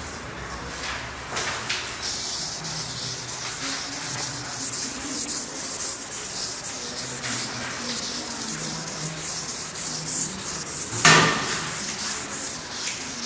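A run of quick scratching strokes against a board, several a second, with one sharp knock about eleven seconds in.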